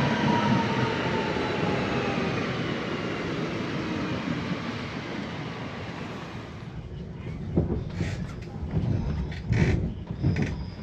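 Electric regional train running and slowing, a whine falling gradually in pitch over its running noise; after about six seconds it becomes quieter, with a few knocks and clunks.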